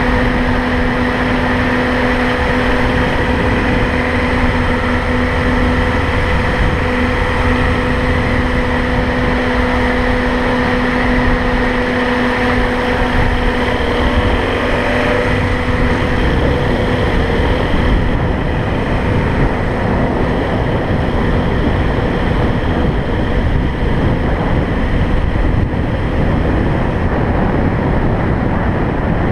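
A car driving along a road: steady road and wind noise, with a steady hum that fades out a little past the middle.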